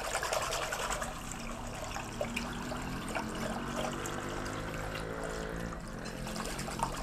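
A wire whisk stirring salt brine in a glass bowl: steady swishing and sloshing of liquid with many light ticks of the whisk against the glass. The undissolved rock salt and sugar are being whisked in to dissolve into the water and vinegar of a pickling brine.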